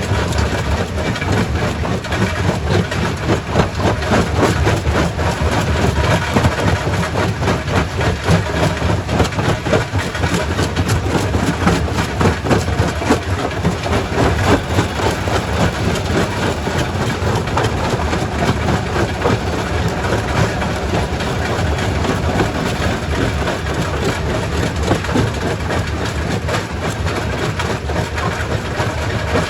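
Primary rock crusher running under load, rock knocking and cracking irregularly inside it over a steady low heavy-machinery rumble.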